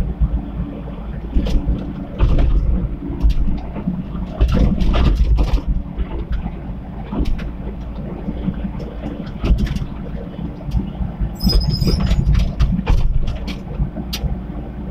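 Komatsu PC75 mini excavator working: its diesel engine runs steadily and surges under load every second or two, with scattered clanks and knocks from the bucket and material. A brief high squeak comes about two-thirds of the way through.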